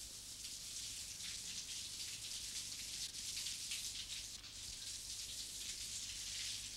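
Shower water spraying steadily: an even, soft hiss of falling water.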